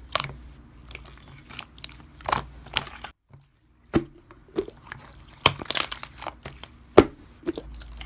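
Slime being squeezed and pressed by hand, giving irregular sharp pops, clicks and crackles. There is a short gap of silence about three seconds in.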